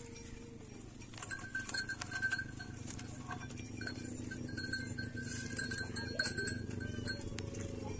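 Cattle lowing in a shed, a steady low call, with scattered clinks and knocks.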